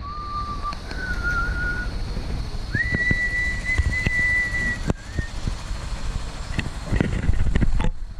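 A person whistling three held notes, each higher than the last, the third held longest, then a short lower note, over a low wind-like rumble and a few soft knocks.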